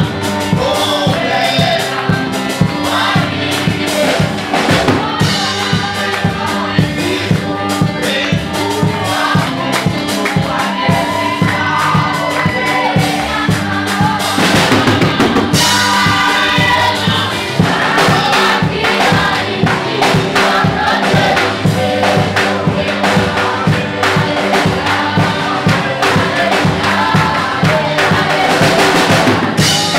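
Gospel music: a choir singing with a drum kit keeping a steady beat under it.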